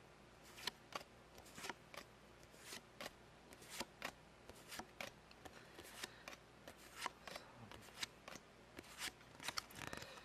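Trading cards being handled and flipped through one at a time: a faint, irregular run of short snaps and slides, about two or three a second.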